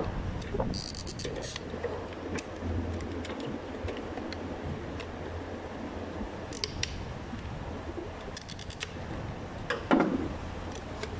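A flat screwdriver prying at the plastic clips of a fuel pump module's housing, with small scattered clicks and scrapes and a few quick runs of ticks, over a low steady hum. A louder short knock comes about ten seconds in.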